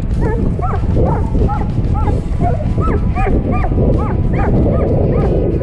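Border Collie whining and yipping in rapid high, rising-and-falling cries, several a second, over a steady low rumble. The dog is worked up by a hooked bass thrashing beside the boat.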